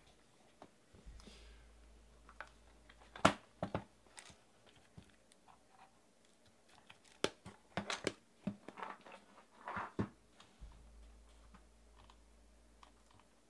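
Scattered clicks, taps and short rustles of objects being handled on a tabletop, with a few sharper knocks, the loudest about three seconds in.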